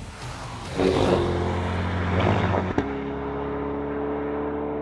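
Chevrolet Corvette E-Ray's V8 running hard as the car drives round the track, with a steady engine note and tyre and wind noise. It cuts off suddenly about three seconds in, and a steady hum of a few held tones follows.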